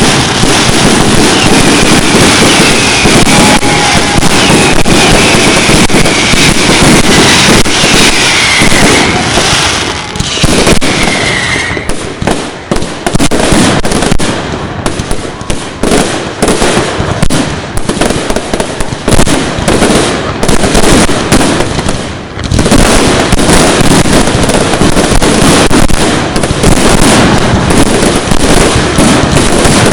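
Fireworks display: a dense, very loud barrage of bangs and crackling, with faint sliding whistles in the first part. About a third of the way in, the barrage thins to separate bangs, then thickens again for the last third.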